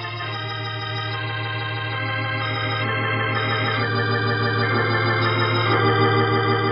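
Organ music bridge: held chords that change several times, swelling louder toward the end. It covers a jump in time in the radio drama.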